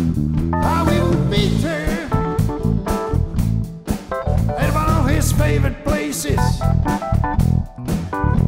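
A blues band playing with guitar and drum kit, with a man singing over it.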